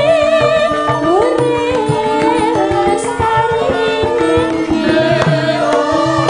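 Javanese gamelan music with a female sinden singing a wavering, ornamented vocal line into a microphone, over steady ringing metallophone notes and drum strokes.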